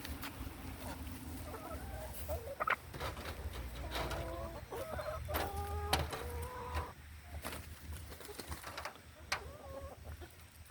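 Chickens clucking and squawking, a series of short pitched calls that is busiest in the middle and thins out after about seven seconds, over a steady low rumble.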